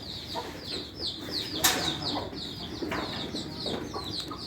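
Chickens clucking under a steady stream of quick, high chirps, several a second, with one sharp knock a little under two seconds in.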